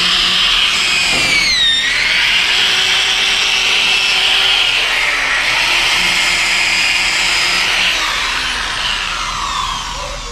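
Corded electric drill running at speed against the rusty bottom edge of a steel door, cleaning it off. Its whine dips in pitch under load about a second and a half in, holds steady, then falls away as the drill winds down near the end.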